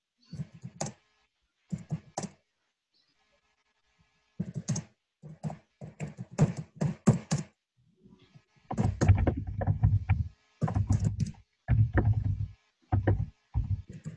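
Typing on a computer keyboard, heard through a video-call microphone: irregular runs of keystrokes with a pause about three seconds in, getting denser and louder from about nine seconds in.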